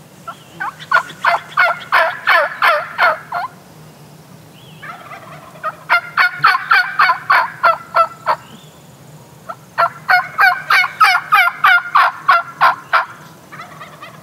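Wild turkey tom gobbling loudly in three bouts a couple of seconds apart. Each bout is a fast run of gobbling notes lasting two to three seconds.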